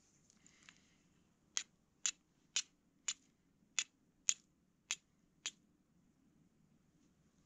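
A fire steel being struck eight times in quick succession, about two strikes a second, each a short sharp scrape, to throw sparks onto char cloth for lighting a fire. A little soft handling noise comes before the strikes.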